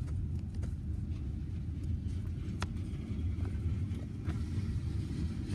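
Steady low rumble of a freight train of loaded log cars rolling slowly past, heard from inside a car, with a few faint clicks and knocks.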